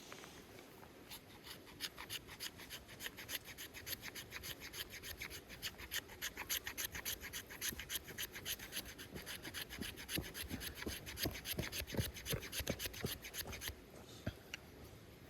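Hand saw cutting wood in quick, even back-and-forth strokes, several a second. From about ten seconds in the strokes come with heavier thuds, and they stop suddenly near the end.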